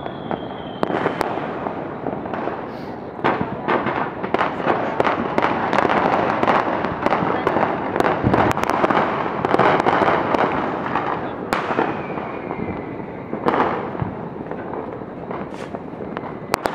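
Fireworks and firecrackers going off in a continuous barrage of overlapping bangs and crackles, busiest in the middle, with a faint falling whistle about twelve seconds in.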